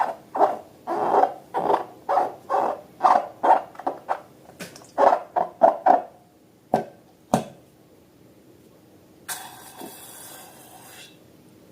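Rubber balloon squeaking in rhythmic pulses, about two a second, as it is squeezed and rubbed; the squeaking stops about six seconds in. Two sharp clicks follow, then a short hiss near the end.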